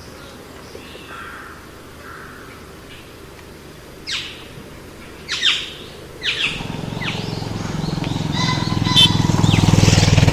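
Birds calling with short, sharp falling chirps. Through the second half a rushing noise with a low hum grows steadily louder, then cuts off abruptly at the end.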